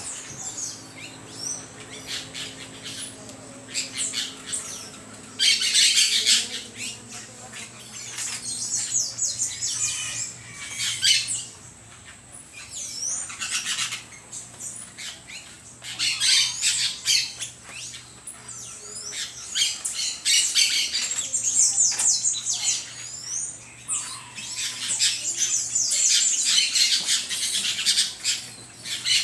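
Birds calling, a busy jumble of high squawks and chirps that swells in loud bursts every few seconds.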